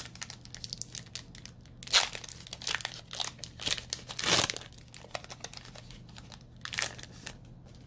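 Foil wrapper of a Pokémon booster pack crinkling and tearing as it is worked open by hand. Irregular crackles run throughout, with louder rips about two seconds and about four seconds in.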